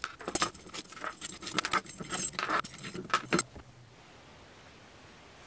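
Small metal hardware clinking and jangling as it is handled: the steel flange ring of a stove-pipe jack and its loose nuts and bolts. A quick run of sharp, ringing clinks stops about three and a half seconds in.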